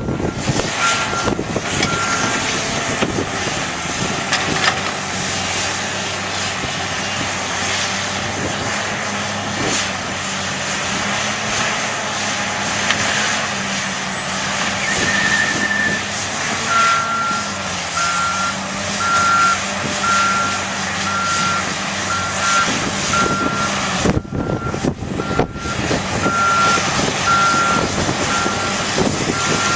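Diesel engine of heavy construction machinery running under load, with scattered knocks and rattles, and a reversing alarm beeping about once a second, briefly near the start and again steadily from a little past halfway.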